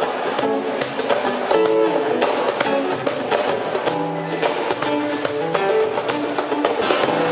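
Live music with no singing: guitar chords strummed to a steady beat.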